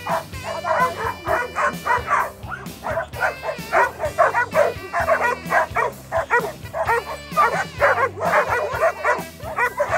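A pack of excited dogs barking over one another, rapid and overlapping with no let-up, the frenzied barking of dogs worked up over a ball game. Background music runs underneath.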